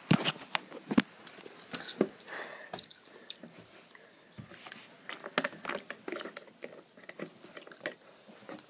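Sticky, irregular clicks and squelches of homemade shower-gel slime being stirred with a cotton swab and poked with fingers in a small plastic tub.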